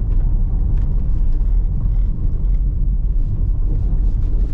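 Chrysler Pacifica minivan driving along a road: steady low road rumble and tyre noise, with faint light ticks.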